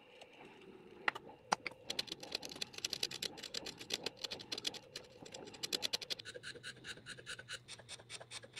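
Bench chisel paring out a notch in a wooden block: a fast run of short scraping cuts through the wood. About six seconds in it gives way to a block plane taking quick strokes to chamfer the edge of a small block.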